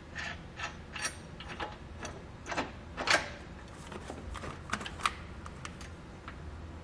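Hex nut being spun on by hand against a split lock washer and flat washer on a steel bolt: irregular small metallic clicks and ticks, with one louder click about three seconds in.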